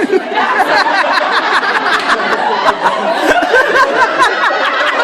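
Many people laughing and chattering at once: a crowd's mixed laughter, loud and dense, with scattered sharp clicks.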